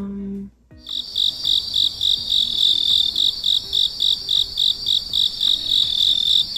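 Chirping-crickets sound effect, a steady, evenly pulsed high chirp at about four chirps a second, starting abruptly about a second in. Just before it, a short hummed note.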